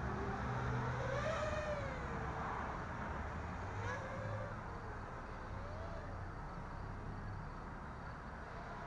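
Racing quadcopter's brushless motors and propellers whining in flight, the pitch rising and falling several times as the throttle changes, over a low steady hum.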